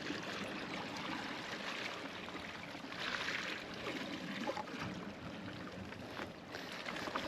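Sea water sloshing and washing, with a louder surge about three seconds in.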